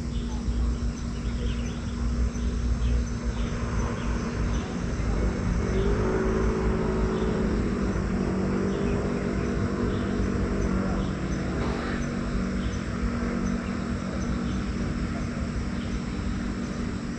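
A motor vehicle's engine is heard for several seconds from about five seconds in, its pitch wavering slightly. Under it run a steady low hum and a constant rumble, with scattered faint chirps.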